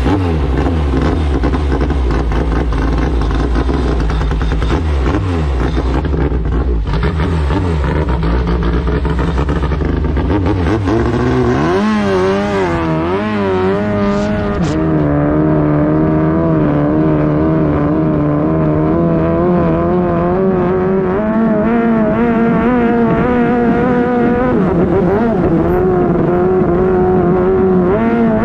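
The 13B rotary engine of a wooden Thai long-tail drag boat, running loud. It revs unevenly for the first ten seconds or so, its pitch wobbles up and down around twelve seconds in, then it settles into a steady drone with a slightly wavering pitch as the boat runs down the canal at speed.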